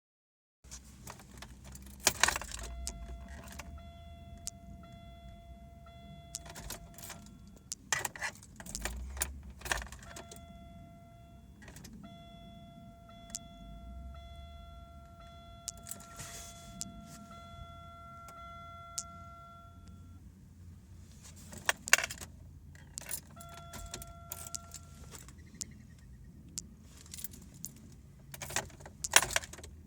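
Key ring jangling and clicking at the ignition of a 1998 Buick Regal as the key is turned over and over, with no engine catching: the car won't start although its electrics come on. A steady electronic chime tone sounds in stretches between the tries, the longest about eight seconds.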